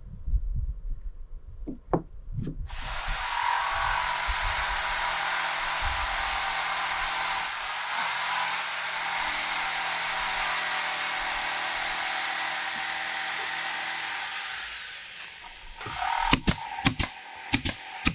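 A handheld power tool runs steadily for about twelve seconds, then winds down. It is followed by a quick series of sharp knocks near the end.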